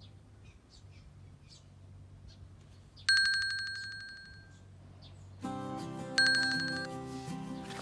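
Two bright bell-like chimes about three seconds apart, each struck sharply and ringing out as it fades. Background music comes in just before the second chime.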